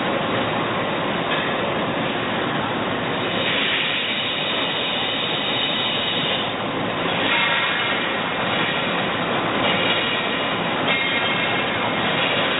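Doosan Puma ST20G CNC lathe running: a steady mechanical rush with a higher whine that comes and goes in stretches of a second or three.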